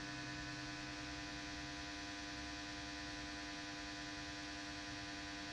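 Steady electrical hum and buzz: one constant low tone with many even overtones above it, unchanging throughout.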